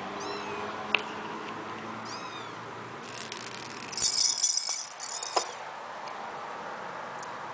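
Persian kittens at play. There are faint, high kitten mews near the start and again about two seconds in. Then comes a louder rattling, jingling scuffle from about three to five seconds in.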